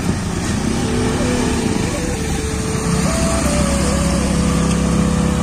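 Several motorcycles and a scooter running at low speed as they pull away one after another, a steady mix of engine hum.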